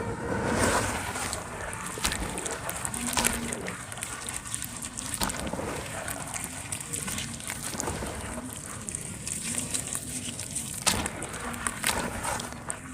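Dry cement chunks crumbling and crunching into wet cement paste: a steady run of irregular crackles and small snaps, with a sharper snap near the end.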